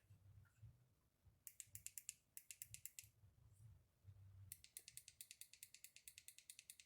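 Faint, quick clicking, about six clicks a second, in two runs with a pause between, from glue being stirred for slime.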